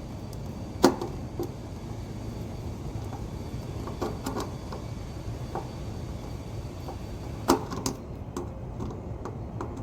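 Sharp clicks and knocks of a screwdriver and wires being worked into the terminals of a new AC contactor, the two loudest about a second in and near the end, with a few lighter taps between, over a steady low hum.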